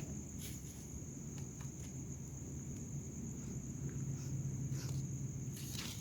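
Crickets trilling as one steady high-pitched drone, with a low hum underneath and a few soft knocks or rustles scattered through.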